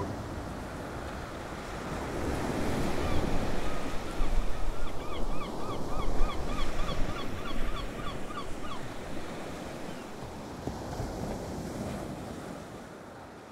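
Ocean surf breaking and washing up the beach, with wind buffeting the microphone. It swells louder midway and fades away near the end. Midway a bird calls in a quick run of short notes, about three a second, for several seconds.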